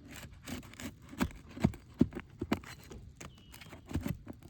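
A series of irregular knocks and taps on an asphalt-shingle roof, the loudest clustered around the middle and again near the end.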